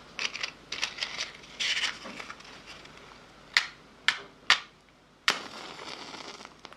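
Close-miked ASMR mouth sounds. First come about two seconds of quick wet crackles and smacks, then four sharp single mouth clicks spaced about half a second to a second apart, the last trailing into a soft hiss.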